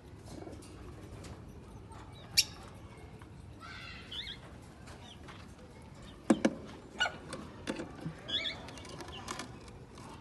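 Birds chirping now and then, with scattered sharp clicks and taps.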